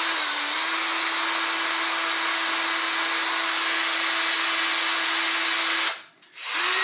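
Cordless drill on its slow speed setting, running steadily as it bores into the head of a damaged cylinder head bolt to drill it out, a steady motor whine over grinding hiss. About six seconds in the motor stops abruptly, then starts again half a second later at a slightly higher pitch.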